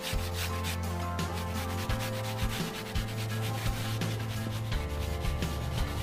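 Background music with long held bass notes that change every couple of seconds, under a repeated rubbing, scraping noise.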